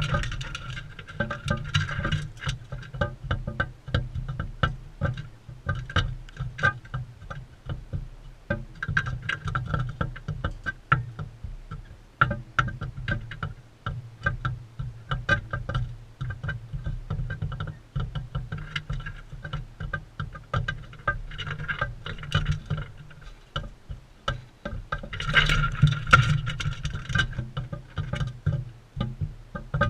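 Rapid, irregular clicking and tapping over a steady low rumble, growing louder and busier near the end.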